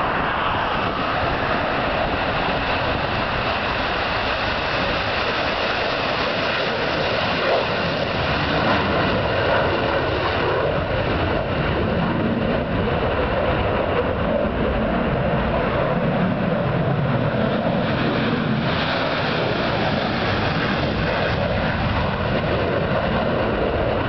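Fighter jet engines at takeoff power during takeoff and climb-out, a loud, steady rushing noise.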